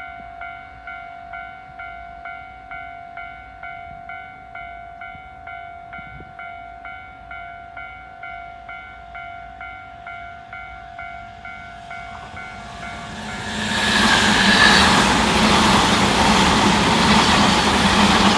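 A railway level-crossing warning bell rings about twice a second. About two-thirds of the way in, a Tobu 100 series Spacia electric express train passes close by at speed, and its loud running noise swamps the bell.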